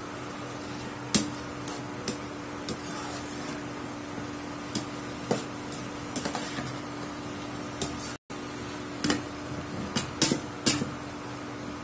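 Metal spoon stirring raw banana pieces in a nonstick pan, knocking and scraping against the pan in about a dozen short, sharp clinks, several in quick succession near the end. Underneath is the steady hum of the stove's cooling fan, typical of an induction cooktop.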